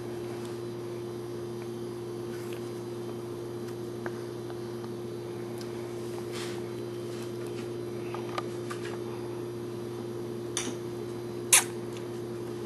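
A steady low hum runs throughout, with scattered faint clicks and smacks of a toddler eating noodles with her fingers. The sharpest click comes about eleven and a half seconds in.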